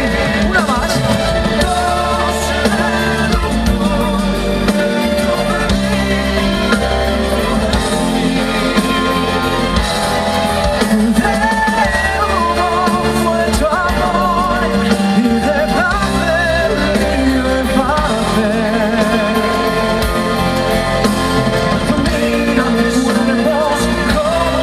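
Live band music: a Spanish-language pop ballad with a lead melody, sung with vibrato, over the band's steady accompaniment.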